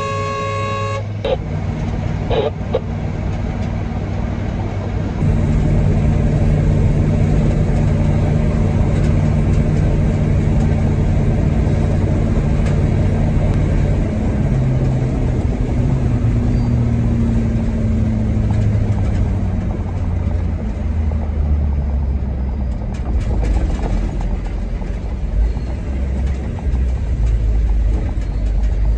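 Truck engine running steadily on the road, its pitch falling around the middle as the vehicle slows. A horn toot ends about a second in.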